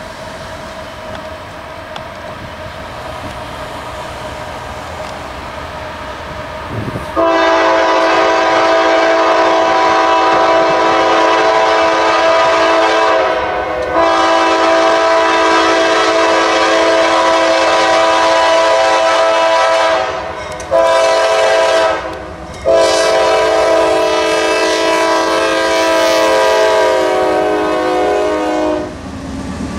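Air horn of the lead Norfolk Southern AC44C6M locomotive sounding the grade-crossing signal: long, long, short, long, loud and steady, starting about seven seconds in. Before it, the approaching freight train rumbles.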